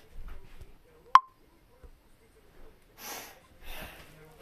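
A quiet room with a single sharp click about a second in, carrying a brief ringing tone, then two short breathy sniffs near the end.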